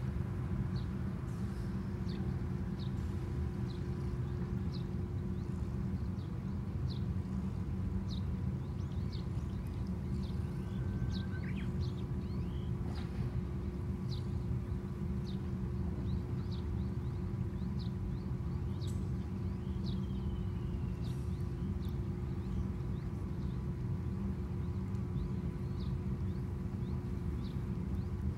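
Small birds chirping in short, repeated high notes, with an occasional gliding call, over a steady low rumble.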